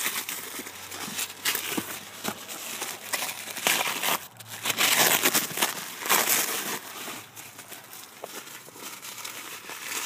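Tissue paper and plastic bubble wrap crinkling and rustling in bursts as a wrapped package is pulled open by hand, loudest around the middle.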